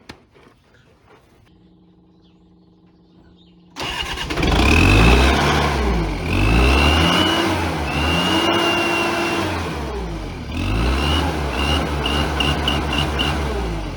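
A turbocharged skid steer loader's engine starts suddenly about four seconds in and is revved up and down several times. A high whistle from the turbo whistles fitted to the exhaust rises with each rev. Near the end, a run of quick short blips gives short whistle chirps.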